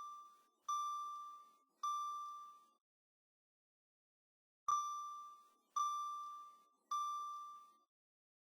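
Car seat belt reminder chime: high single dings, each ringing and fading, in sets of three about a second apart with a pause of about two seconds between sets. It is the warning that a seat belt is not fastened.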